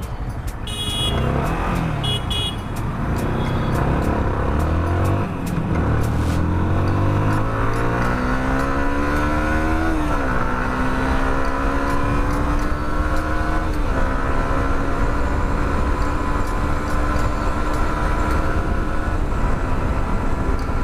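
Yamaha R15 v2's 150 cc single-cylinder engine accelerating hard from a launch, its pitch climbing and dropping back at each of about four upshifts, then holding steady at speed.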